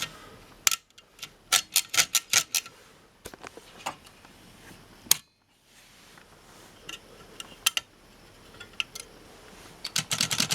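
Keys of a vintage portable typewriter being struck, the type bars clacking in a quick run of about eight strokes a second in, then single strokes, and another fast run near the end.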